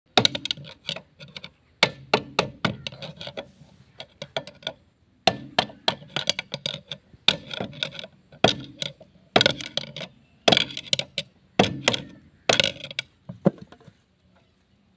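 Hammer blows on a steel rod set against a John Deere tractor's front-wheel hub nut, knocking the nut round to loosen it. Sharp metal-on-metal strikes come in quick runs of several blows with short pauses between, and stop about a second before the end.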